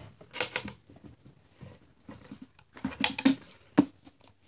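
A few short, sharp rustles and clicks close to the microphone, with quiet gaps between them: handling noise as someone moves right beside the phone.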